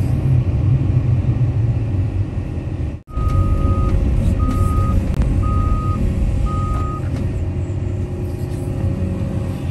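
Diesel engine of an excavator running with a steady low rumble. The sound drops out for an instant about three seconds in. After that a heavy machine's backup alarm beeps four times, about once a second.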